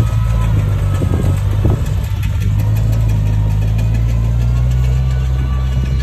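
Komatsu bulldozer's diesel engine running steadily at a low, even pitch, with a few knocks in the first two seconds.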